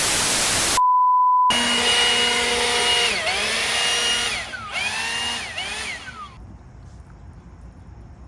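A short burst of hiss and a brief steady beep, then a power tool's motor whine that dips in pitch and speeds back up several times before winding down.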